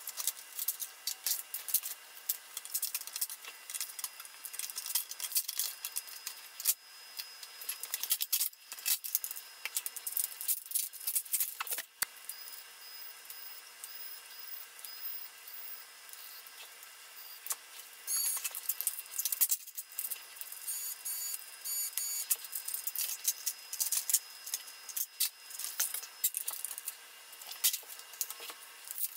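Sped-up sound of a laptop being taken apart: fast clicks and rattles of plastic and metal parts and screws. Runs of short, high whirs from a cordless electric screwdriver come in the middle and again a little later.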